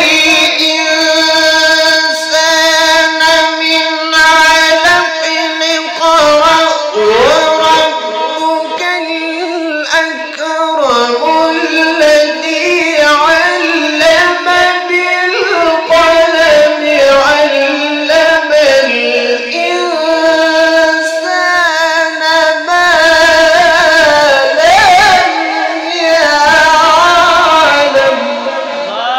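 A young male qari reciting the Quran melodically in a high voice, holding long notes with wavering ornaments and sliding between pitches.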